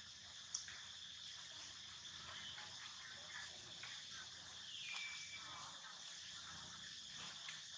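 Steady high-pitched insect chorus, with faint rustles of dry leaves and a sharp click about half a second in. A brief high squeak comes near the middle.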